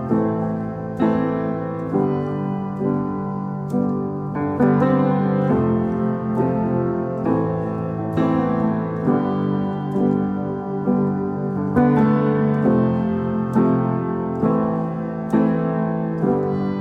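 Background piano music: a slow, steady run of held chords and notes.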